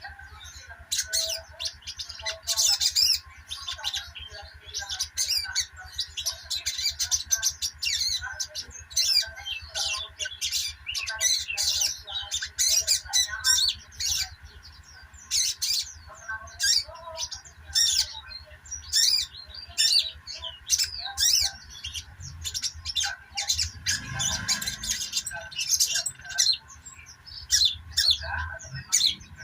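Sogok ontong (sogon) sunbird twittering in rapid, high-pitched chirps and trills. This is the continuous 'ngeriwik' chatter played to stimulate a silent sogon into singing. A steady low hum runs underneath.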